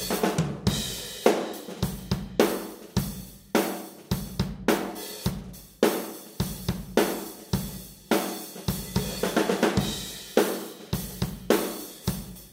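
Drum kit played in a steady groove, with kick drum, snare, hi-hat and cymbals, picked up only by a spaced (A-B) pair of condenser microphones standing in front of the kit in a large live room. It sounds very wide, with a ton of low end and the room's ambience around the hits.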